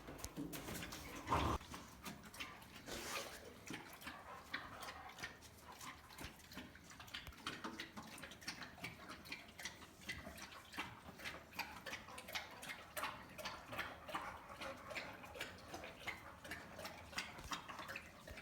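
Dog gnawing on a wooden stick: a quiet, irregular run of small clicks and cracks, several a second, with one louder thump about a second and a half in.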